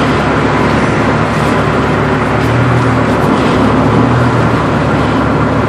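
Car engine running and road noise while driving, heard from inside the cabin, steady throughout.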